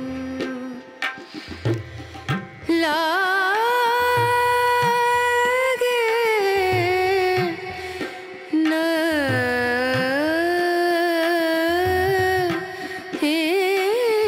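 Background music: a melody of long, sliding, wavering notes over a hand-drum rhythm.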